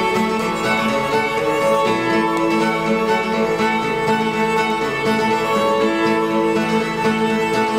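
Fiddle playing an old-time tune, bowed steadily, with acoustic guitar accompaniment.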